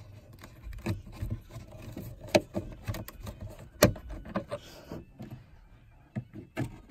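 Plastic dashboard trim and glove box clips being handled and worked loose: irregular clicks, taps and rubbing, with two sharp knocks near the middle.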